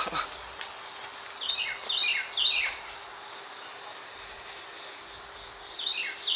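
A steady, high insect drone, like crickets, runs underneath. Over it a bird gives a quick run of three sharp calls, each sliding downward in pitch, about a second and a half in, and starts another run near the end.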